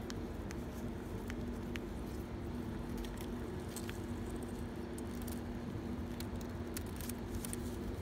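Scattered sharp clicks and light rustling as a hand handles dove nestlings in their nest, over a steady low mechanical hum.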